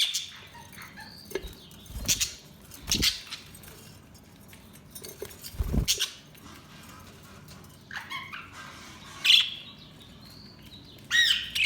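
Budgies chirping now and then in short calls, with a few short thumps in between, the loudest about six seconds in.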